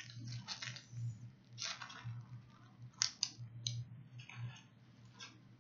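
Plastic packet being handled close to the microphone, rustling and crinkling in short irregular bursts with a few sharper clicks, over a steady low hum.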